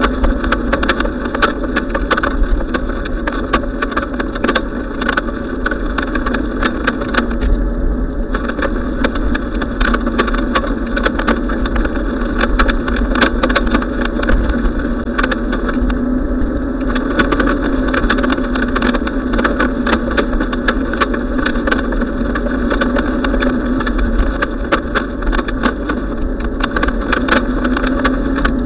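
Steady rumble and wind noise of a bicycle ride on a paved path, picked up by a camera mounted on the bike, with frequent small clicks and rattles from road vibration.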